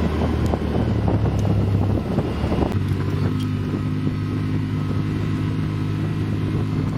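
Side-by-side UTV engine running steadily under way on a gravel road, with rattling and crunching over the gravel, heard from inside the open cab. About three seconds in the engine note shifts and the rough rattle eases.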